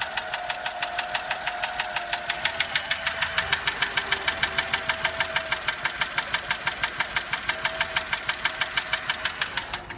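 1936 Daimler Light 15's engine idling with a fast, regular ticking in time with it, an unexplained tick that the owner dislikes. The running and the ticking cut off just before the end.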